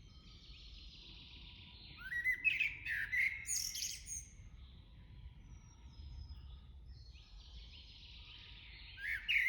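Forest birds singing: a faint chorus of calls throughout, with a loud, quick phrase of rising chirps about two seconds in lasting around two seconds, and another loud phrase starting near the end.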